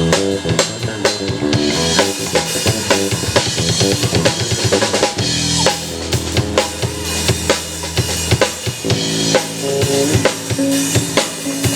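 Live band music: a drum kit playing a busy beat of kick drum and snare hits over sustained electric bass notes.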